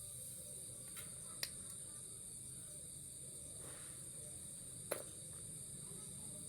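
Faint, steady high-pitched chirring of crickets, with a few small clicks about a second, a second and a half and five seconds in.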